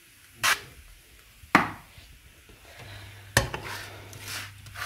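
Two short hisses of Lurpak cooking spray onto a paratha in a cast-iron skillet. About three and a half seconds in, a spatula knocks against the pan, and then comes sizzling as the paratha is pressed flat.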